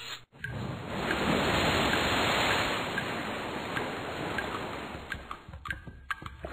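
Stormy wind-and-sea sound effect: a rushing noise that comes in a moment after the start, swells over the first couple of seconds, then slowly dies away.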